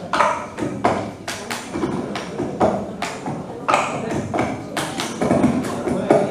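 A small drum set played live: an uneven run of drum and cymbal hits.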